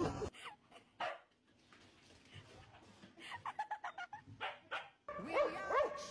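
Dog yipping: a few faint short yelps, then from about five seconds in a louder quick run of short high yips.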